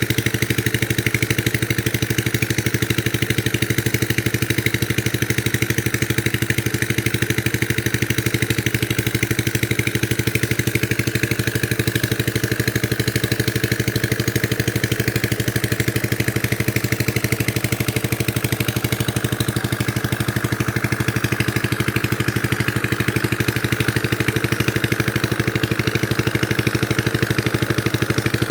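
A small engine running steadily at a constant speed, its fast, even firing unchanged throughout.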